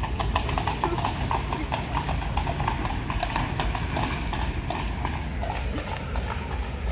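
Hooves of a pair of draught horses clip-clopping at a walk on the street as they pull a horse-drawn omnibus carriage. The hoofbeats fade in the second half as the carriage moves off.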